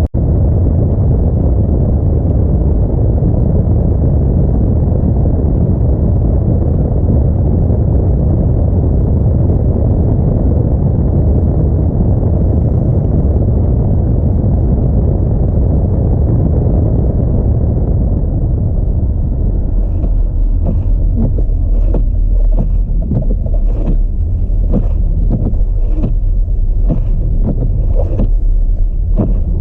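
Audi A4 driving on a snowy road: a loud, steady low rumble of road and wind noise. About twenty seconds in, the rumble eases a little and a quick run of sharp ticks begins, roughly two a second.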